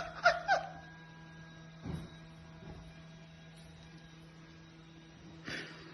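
A steady low electrical hum, with a soft thud about two seconds in and a short rustling burst near the end. A few brief pitched sounds in the opening moment die away.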